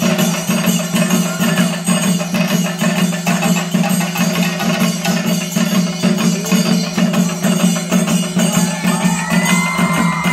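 Theyyam percussion ensemble of chenda drums and cymbals playing a fast, steady rhythm, with higher wavering tones joining near the end.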